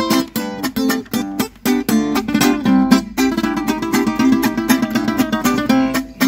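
Two nylon-string cutaway acoustic guitars playing a fast picked instrumental passage in the sierreño style, with no singing over it.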